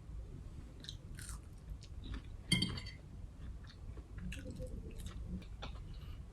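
A person chewing a mouthful of food close to the microphone, with small wet clicks and crunches. About two and a half seconds in comes one louder clink, like cutlery against a plate.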